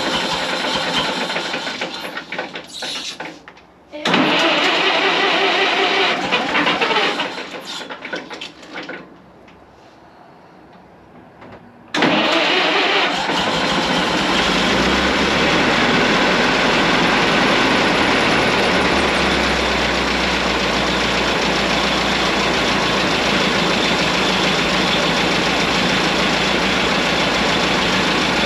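1927 White dump truck's old flathead engine being started after sitting for years: several starting attempts that run briefly and die away, then about twelve seconds in it catches and keeps running steadily.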